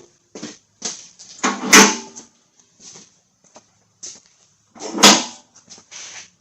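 Mower lift being let down a little under a riding mower: a string of knocks and rattles, with two loud clunks about three seconds apart.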